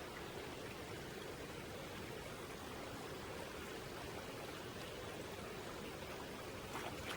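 Steady, even outdoor background hiss with no distinct events, and a few faint clicks near the end.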